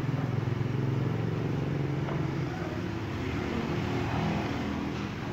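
A motorcycle engine running, loudest in the first half and fading after about two and a half seconds, over street traffic noise.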